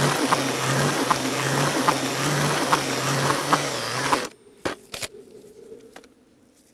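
Damp fishing groundbait being mixed in a bucket: a dense rushing noise with a low pulse repeating a little more often than once a second. It stops abruptly about four seconds in, followed by a few light knocks and near quiet.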